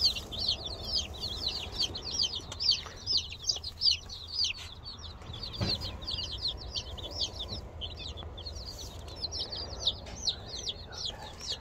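A box of baby chicks peeping constantly, many short high-pitched cheeps overlapping at several a second, with a couple of faint knocks as the cardboard box is handled.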